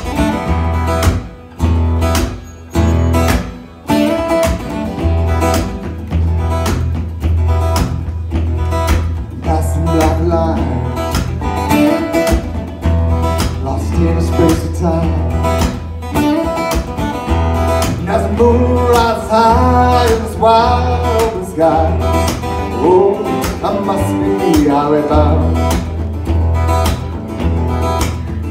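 Acoustic guitar strummed through an instrumental stretch of a blues-rock song, over a steady low bass part that drops out briefly in the first few seconds.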